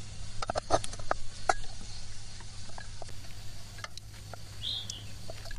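Chopsticks clicking and scraping against a ceramic rice bowl and a metal pot while cooked rice is scooped out. There is a quick cluster of sharp taps in the first second and a half, then occasional lighter ones, and a short high chirp near the end.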